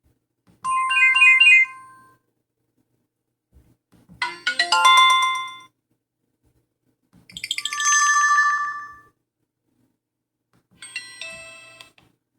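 Alcatel 3025 mobile phone playing four short built-in electronic alert tunes one after another, each a quick run of bright notes with a ringing tail, separated by pauses of about two seconds. The last tune is quieter than the others.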